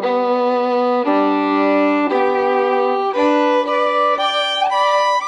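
Background music: a violin playing a melody of long held notes for the first few seconds, then shorter, quicker notes.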